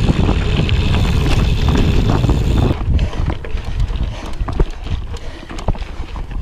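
Wind noise on the microphone and the rumble of a Canyon Grail gravel bike's tyres rolling fast over a dirt trail. About three seconds in it drops to a quieter, slower stretch of scattered clicks and rattles as the tyres roll over loose rocks and gravel.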